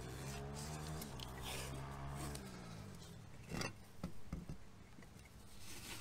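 Blue painter's tape being pulled off the roll and pressed and rubbed onto a wooden hive box, with a short rasp of unrolling tape about three and a half seconds in and a few small ticks after it. A low droning hum fades out about two seconds in.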